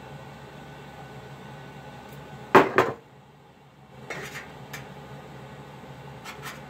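Metal clinking and knocking as a bent brass rod and hand tools are handled against a copper model boat on the workbench: two sharp clanks about two and a half seconds in, then a few lighter clinks.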